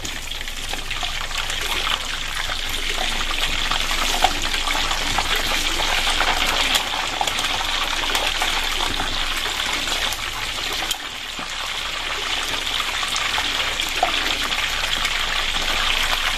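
Pork knuckle deep-frying in a wok of hot oil: a steady sizzle of bubbling oil. A few sharp clicks come from the metal tongs against the wok as the pieces are turned.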